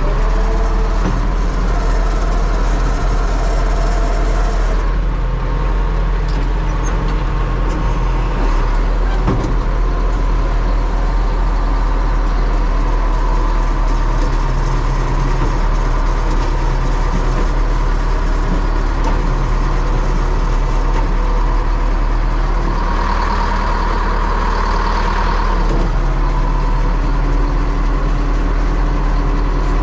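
DT-75 crawler tractor's diesel engine running steadily under load as its bulldozer blade pushes soil, heard from inside the cab. A higher whine rises briefly about three-quarters of the way through.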